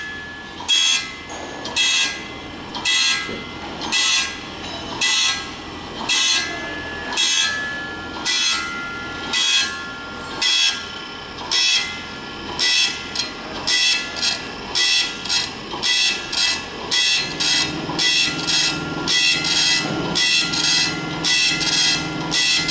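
Saw-tooth grinding machine sharpening a tube mill flying saw disk: a short burst of grinding hiss each time the wheel takes a tooth, about one a second at first and quickening to about two a second from about halfway, over a steady machine hum.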